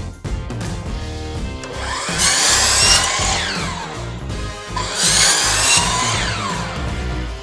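Hercules sliding compound miter saw cutting expanded-polystyrene ICF foam twice, each cut lasting a second or two, with the blade's whine falling away after each cut as it winds down. Background music plays throughout.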